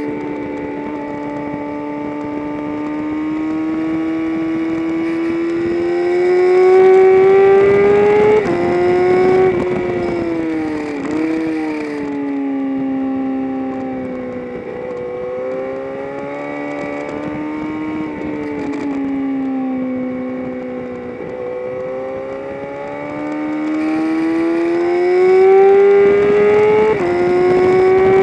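Engine of a track-day vehicle at speed on a race circuit. The revs climb through a gear and drop sharply at an upshift about 8 s in, dip and jump around 11 s as it goes down the gears, run slower through the middle, then climb again to another upshift near the end.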